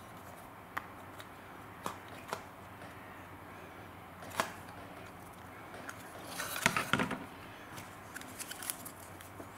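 Scattered light clicks and taps of a monitor power-supply circuit board being handled during soldering work, then a short cluster of knocks and rustling about six and a half seconds in as the board is turned over on a cutting mat, and a few more ticks near the end.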